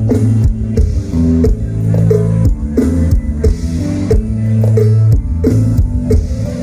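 A mor lam band playing loud amplified music, with electric guitar and a drum kit over a heavy bass line.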